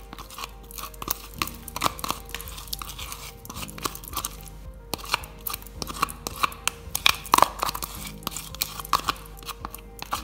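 Runny, broken-down slime being scraped with a plastic spatula from a plastic tub into a glass bowl: wet, sticky clicks and pops, irregular and many, with a few louder ones about seven seconds in. Background music plays underneath.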